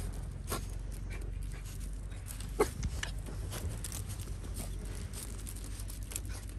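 Puppies panting and whimpering, with a scatter of short, sharp yips and scuffles.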